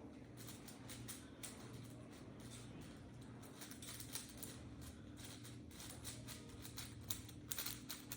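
A 3x3 Rubik's Cube being turned quickly, its layers making rapid, faint clicks and clacks, a few slightly louder near the end.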